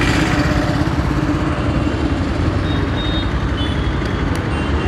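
Diesel engine of a Bauer rotary piling rig running steadily, a loud, even low rumble.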